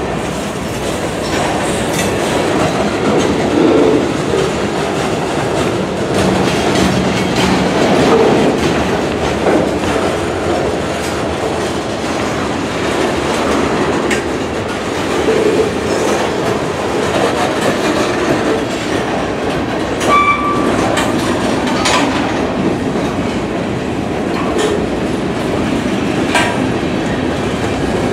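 Freight cars (covered hoppers and centerbeam lumber flatcars) rolling past close by: steady rumble and clatter of steel wheels on the rails, with sharp clicks as wheels cross rail joints. A brief high wheel squeal about two-thirds of the way through.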